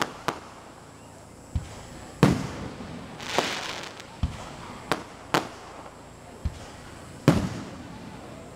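Aerial fireworks bursting overhead: a string of separate booms and sharp cracks roughly a second apart, the loudest just after two seconds in and near the end, with a brief hissing crackle around the middle.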